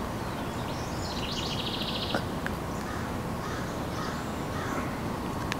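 Steady outdoor background noise with a bird's short, rapid rattling call about a second in.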